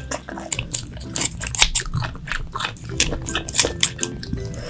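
Chewing and biting spicy stir-fried webfoot octopus, a run of irregular wet clicks and smacks, over faint background music.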